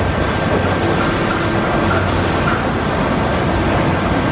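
Tracked demolition excavator running steadily under load, a low engine hum beneath the dense grinding and crunching of concrete rubble in its hydraulic crusher jaws.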